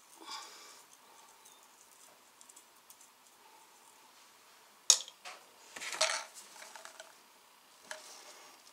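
Hands handling PVC pipe fittings and a union coupling nut, making light plastic clicks and knocks. There is a sharp click about five seconds in and a short cluster of knocks about a second later.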